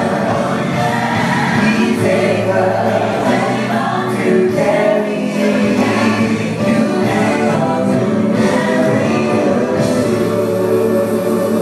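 A man and two women singing a gospel song together into microphones.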